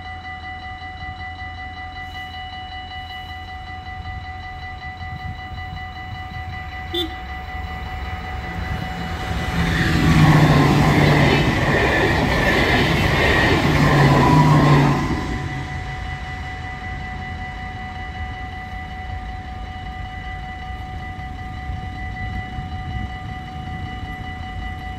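Dutch level-crossing warning bell ringing steadily with the barriers down, as a yellow NS intercity train rushes past over about six seconds in the middle and then fades away; the bell keeps ringing after it.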